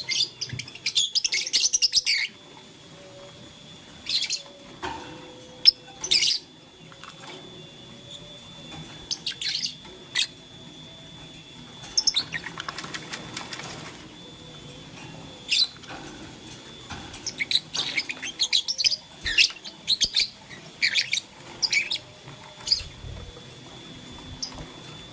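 Lovebirds chirping: short, shrill, scratchy calls in clusters every second or two, with a few sharp clicks between them.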